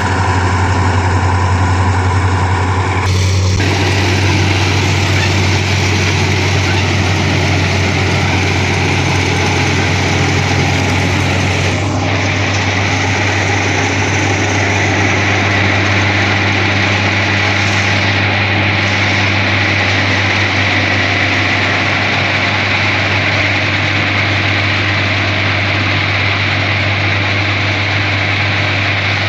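New Holland combine harvester with a straw-chopping (tudi-making) attachment running under work: a steady, loud deep engine drone under the dense clatter and rush of the threshing and chopping gear. A set of higher tones in the mix drops out about three seconds in.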